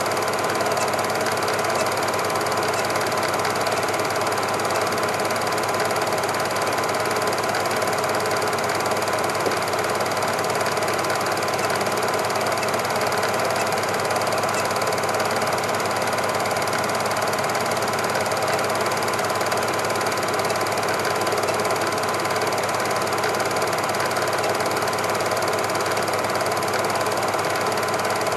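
Cine film projector running: a steady, even mechanical clatter that does not change.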